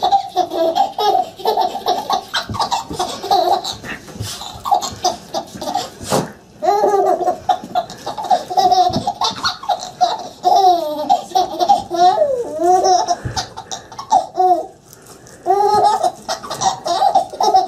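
A baby laughing in repeated short bursts of giggles and belly laughs, with a brief lull a little before the end. A single sharp click comes about six seconds in.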